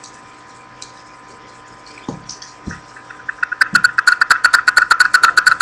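A few faint clicks, then from about three seconds in a fast, loud run of sharp clicks, roughly ten a second: handling noise from a hand working right at the webcam.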